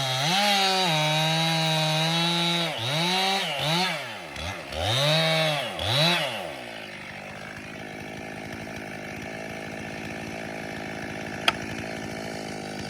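Chainsaw engine held at high speed, then revved up and down four or five times before dropping to a steady idle about seven seconds in; a single sharp click near the end.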